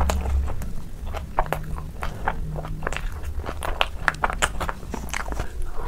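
Close-miked chewing of soft food, with many wet mouth clicks and lip smacks in an irregular run.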